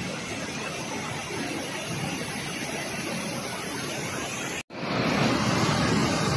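Water rushing out of a raised dam gate in a steady rush of white noise. It cuts out briefly about four and a half seconds in and comes back louder.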